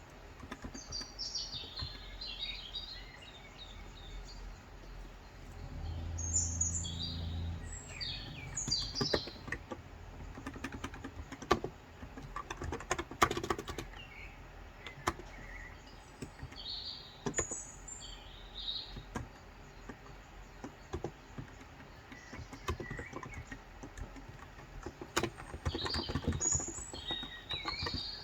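Small birds chirping in bursts, with scattered keystrokes on a Cox Endeavour electrostatic capacitive (35 g) tenkeyless keyboard. A brief low hum sounds about six seconds in.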